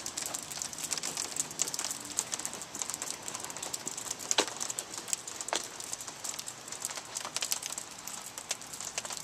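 Rain pattering on wet asphalt pavement, a dense, even crackle of drops with a few sharper ticks about four and five and a half seconds in.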